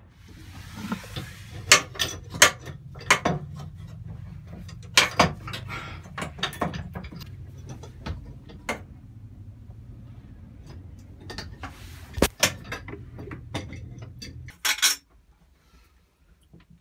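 Tools and hard gear clattering and knocking as they are handled in a boat's engine compartment: irregular sharp clicks and knocks over a steady low hum, which stops shortly after two loud knocks near the end.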